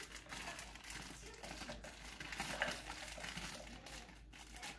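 Crinkling of a plastic bag of baby carrots as it is shaken and tipped to empty the carrots out.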